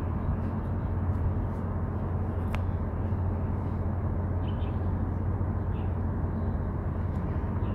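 Steady low outdoor rumble, with a faint, short high chirp about two and a half seconds in.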